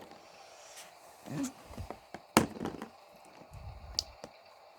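Plastic pop tube fidget toys being handled and set down, giving scattered clicks and knocks, the sharpest about two and a half seconds in.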